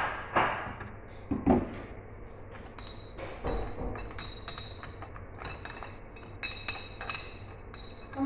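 A metal spoon clinking and scraping against square glass dessert cups: a few heavier knocks in the first two seconds, then quick, bright, ringing clinks that come thicker in the second half.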